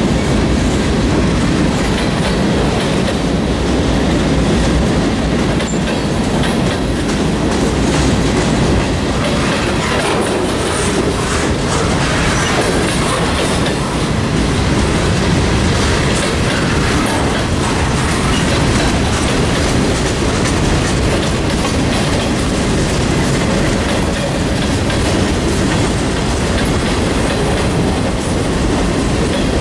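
Freight cars rolling past close by: a steady, loud rumble of steel wheels on the rails, with clicking as the wheels cross rail joints.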